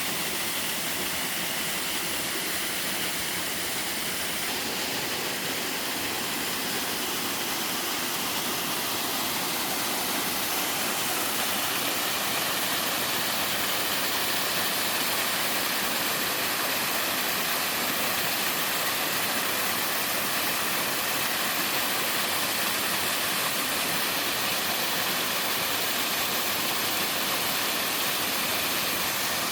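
Mountain waterfall splashing into a valley stream, a steady even rush that grows a little louder about halfway through.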